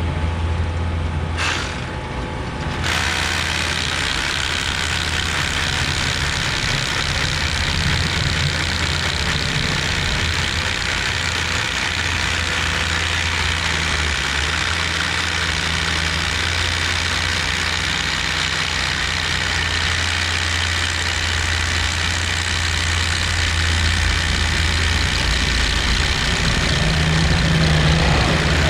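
Steady machinery running: a constant low engine-like hum with a hiss above it.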